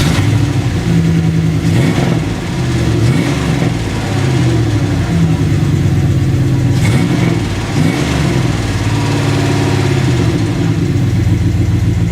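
1999 Dodge Ram 1500's 5.9-litre 360 V8 running loud through a newly fitted Thrush Welded muffler with no tailpipe on yet. Its pitch rises and falls a few times as the throttle is blipped.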